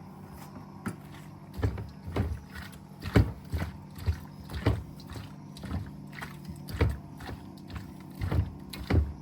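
Irregular soft thuds and knocks, about one to two a second, as crappie fillets are worked in mustard and seasoning, over a steady low hum.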